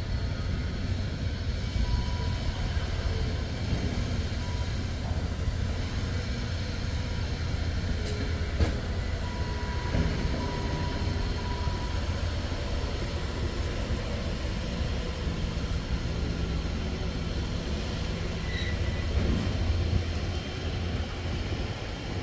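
Heavy steel sliding gate rolling along its ground track, driven by a BFT Deimos AC gear motor, with a steady low rumble and a single click about eight and a half seconds in.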